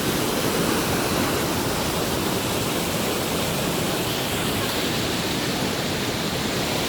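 The steady rush of the 310-metre Dudhsagar waterfall, an even roar of falling water with no break.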